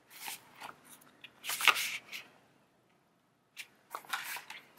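A zippered leather pen case being handled and opened: the zip is run open, and the leather and the paper of the notebook inside rustle, in three short bursts.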